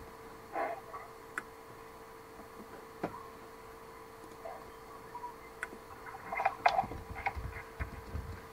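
Scattered clicks of typing on a computer keyboard over a steady faint hum, the clicks coming thicker about six to seven seconds in.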